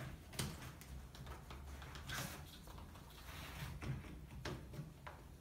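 Light clicks, knocks and brief rustles from hands fastening a fabric carry bag onto a small wheeled trolley cart, at irregular intervals over a faint low steady hum.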